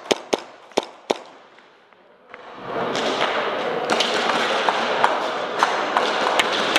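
Airsoft guns firing: four sharp cracks within the first second or so. From about two and a half seconds in comes a dense steady rushing noise, with more scattered shots over it.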